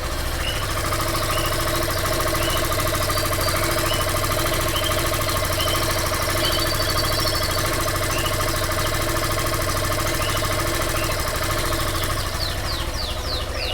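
Yamaha Fazer 150's single-cylinder engine idling steadily, with a mechanical noise that the new owner finds strange and suspects may come from running on ethanol. Birds chirp faintly over it.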